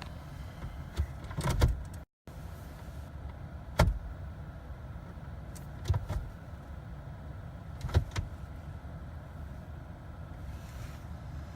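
Ignition key turned again and again in a Jeep that will not start: a sharp click or clunk every two seconds or so, with no starter cranking and no engine catching, over a steady low hum. The owner blames the no-start on the park/neutral interlock or the transmission control module.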